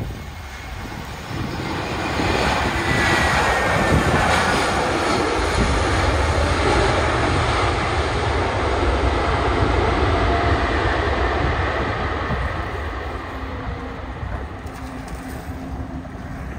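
Airbus A321 jet engines going to reverse thrust on the landing rollout: a loud rush of engine noise that builds about two seconds in, holds with a falling whine, and fades over the last few seconds as the jet slows and moves away.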